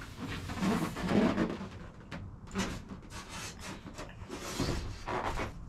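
Foil-faced foam insulation board being handled and pushed up against a fiberglass camper shell roof, rubbing and scraping in several irregular bursts.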